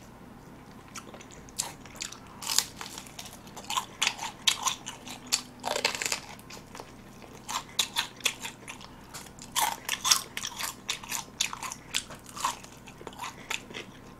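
Close-miked biting and chewing of very crisp, small-cut Norang Tongdak fried chicken: many sharp, irregular crunches of the fried batter, beginning about a second in.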